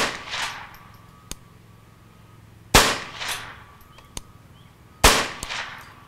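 Ruger Charger .22LR semi-automatic pistol fired slowly from a bipod rest: three sharp shots about two and a half seconds apart, the first right at the start. Each shot trails off in a rolling echo.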